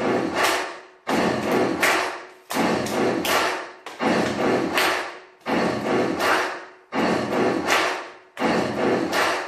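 Stomp-stomp-clap beat: heavy thumps followed by a sharp hand clap, repeating about every second and a half with a long ringing decay, as the rhythm intro to a song.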